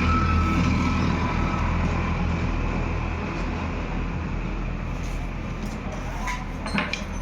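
Electric motor running with a steady hum, slowly growing quieter, with a few light clicks near the end.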